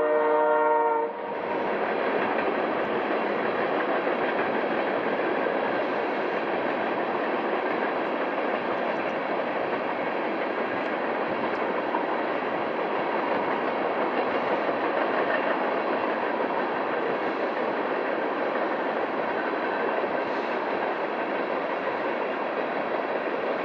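Diesel locomotive air horn sounding a chord of several notes, cut off about a second in, followed by a freight train's empty coal cars rolling past steadily.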